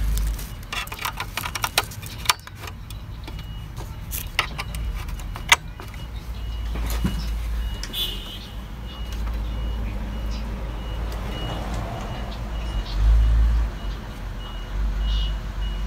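Clicks and knocks of a cable being handled and an HDMI plug pushed into a digital video recorder, over a steady low hum. From about six seconds in, a high short beep repeats at an even pace.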